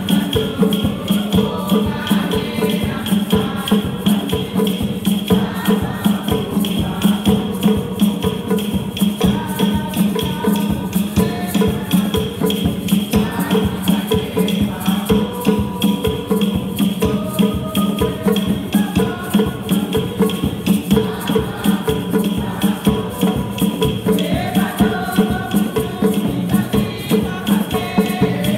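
A Congolese kilombo church choir singing a hymn, led by a woman's voice through a microphone, over a steady rhythm of shaker and hand percussion.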